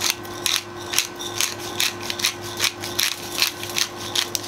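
Hand pepper mill grinding peppercorns: repeated short, crunchy rasps, about two or three a second, as the mill is twisted back and forth.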